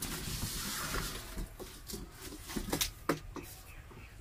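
Cardboard box and plastic sprayer tank being handled as a battery knapsack sprayer is lifted out of its box: a rustle over the first second, then several light knocks and clatters.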